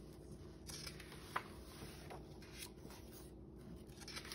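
Faint rustling of a picture book's paper pages being handled and turned by hand, with one light tap about a second and a half in.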